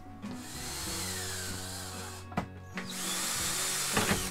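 Cordless drill-driver running in two bursts, driving hinge screws as a door is hung; the first burst falls in pitch, and there is a sharp click between the two.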